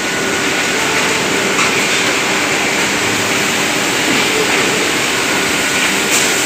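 Texpa automatic flat-sheet machine running, with fabric feeding off the roll over its guide rollers: a steady, even mechanical running noise with a faint low hum.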